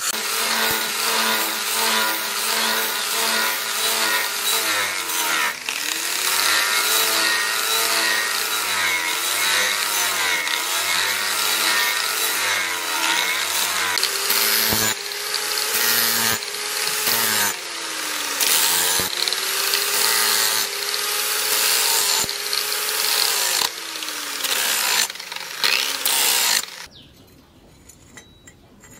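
Handheld angle grinder with an abrasive disc grinding a steel cleaver blade forged from a leaf spring. Its motor whine sags in pitch again and again as the disc is pressed into the steel, then climbs back. It cuts off near the end.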